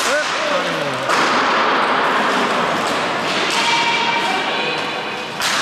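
Hockey match play in a sports hall: knocks and thuds of sticks and ball, with shouting from the players, and a sharp knock near the end.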